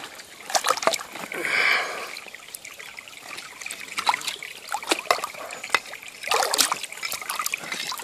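Creek water splashing and trickling as a freshly dug double-sided axe head is scrubbed clean by hand under the water, with irregular splashes that get busier about one and a half seconds in and again near the end.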